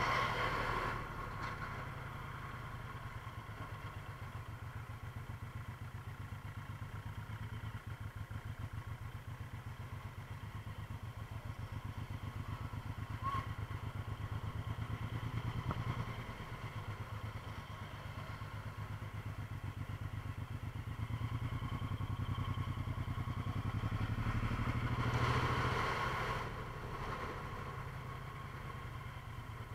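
A motor vehicle's engine running steadily, swelling louder briefly at the start and again near the end.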